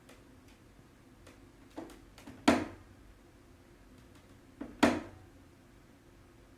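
Hitachi air conditioner making its abnormal shutdown noise: a few light clicks, then two sharp cracks about two seconds apart, over a faint steady hum.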